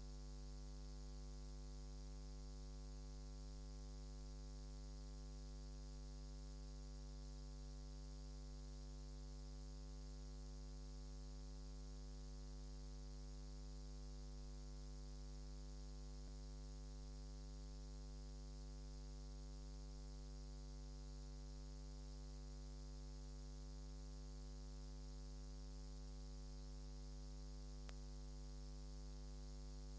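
Steady electrical mains hum with a faint hiss, unchanging throughout, from the recording chain rather than any play on the court.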